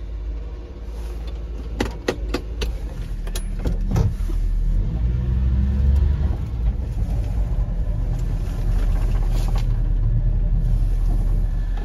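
1997 Suzuki Carry kei truck's 660 cc three-cylinder engine running as the truck sets off on a test drive, a low rumble that swells and rises in pitch about five seconds in as it pulls away. A few sharp clicks and knocks come in the first few seconds.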